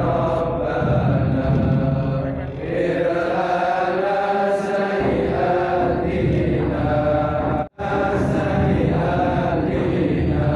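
Islamic devotional chanting by voices in long held lines that run on without a break, except that the sound cuts out for an instant about three-quarters of the way through.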